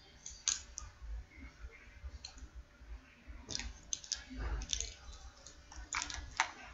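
Scattered light clicks and taps, about nine in all, irregularly spaced, from a handheld eyeshadow compact and brush being handled. The loudest come about half a second in and twice near the end.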